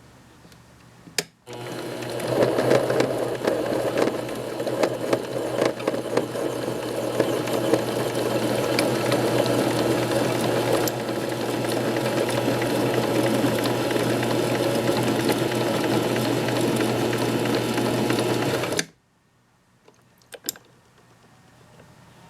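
Compact 7 benchtop metal lathe switched on with a click about a second in, running with a steady hum and irregular clatter while cutting an M8 thread in SS400 steel. It stops abruptly near the end.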